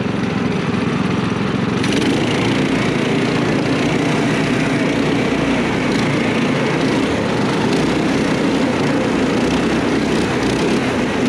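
The four-engine go-kart's four small 212cc single-cylinder engines running together under throttle, a steady loud drone heard from onboard the kart.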